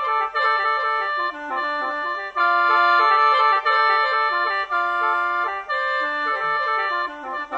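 Khaen, the bamboo free-reed mouth organ, playing a quick, ornamented melody over sustained drone notes held beneath and above it.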